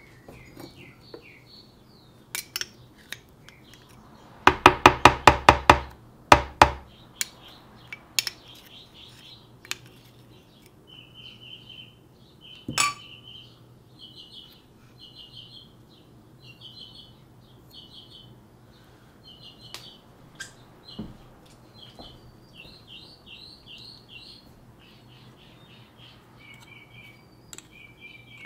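A spoon clinking against a kitchen container while almond butter is spooned out: a quick run of about eight even taps a few seconds in, a couple more just after, and a single sharp clink later. Birds chirp throughout.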